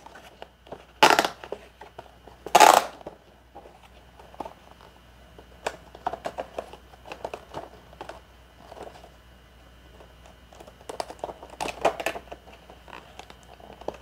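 Clear plastic blister packaging being handled and pried at to open it, crinkling and crackling in irregular bursts. Two loud crackles come in the first few seconds, then softer scattered crackles, with another flurry near the end.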